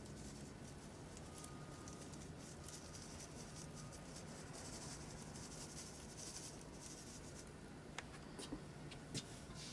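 Faint scratchy rustling of a wire-mesh sieve being shaken to sift dust onto a wooden porch floor, with a few light clicks near the end.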